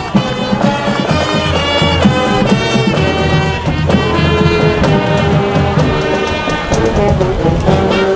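High school marching band playing, with the brass section carrying the tune.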